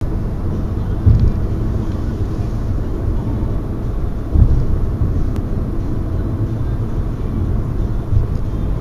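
Steady low road and engine rumble inside a car's cabin while driving on a freeway, with two brief louder thumps, about a second in and again about four and a half seconds in.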